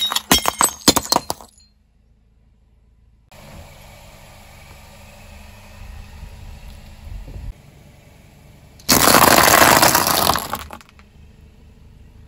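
Ceramic plates cracking and shattering under a car tyre, a rapid run of sharp breaks in the first second and a half. Then a quieter low rumble as the tyre rolls onto a stack of sliced bread, and about two seconds of loud dense crunching as dry pasta shells are crushed flat.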